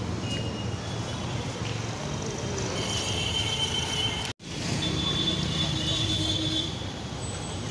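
City street traffic noise with a high, thin squeal held for about a second and a half, twice, around the middle; the sound cuts out for an instant about four seconds in.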